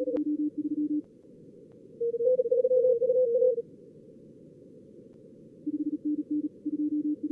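Fast Morse code (CW) from SkookumLogger's contest practice mode: bursts of keyed tone at two pitches, a lower one at the start and near the end and a louder, higher one about two seconds in, over a steady hiss of simulated receiver noise.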